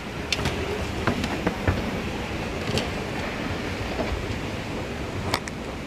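Airport moving walkway running under a rider and her luggage: a steady low rumble with scattered clicks and knocks.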